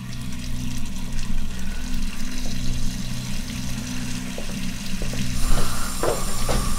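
Horror-film sound design: a steady low drone under a loud, rushing hiss like running water that swells up, with a few sharp knocks near the end.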